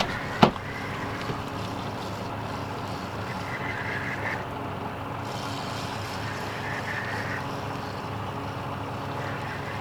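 Boat motor running steadily at low trolling speed, with a sharp click just after the start and two short hissing stretches midway.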